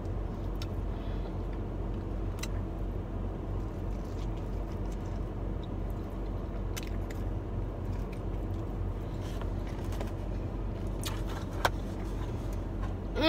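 Steady low rumble and hum of an idling car heard inside the cabin, with a few faint light clicks and one sharper click near the end.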